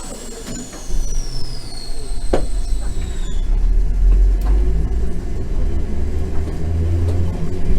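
Randen tram running along the line: a thin high squeal from the wheels falls steadily in pitch over the first few seconds, a sharp click sounds about two seconds in, and the low rumble of the running gear builds, with a low motor hum rising in pitch near the end as the tram picks up speed.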